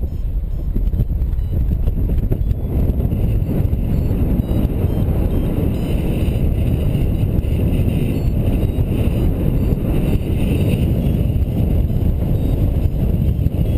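Wind rushing over the microphone of a paraglider pilot's camera in flight: a steady low rumble.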